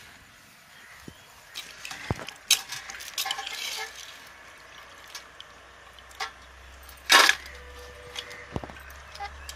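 Small dried fish being washed by hand in a metal pot of water: splashing and swishing, with scattered clinks of steel bowls and one louder clatter about seven seconds in.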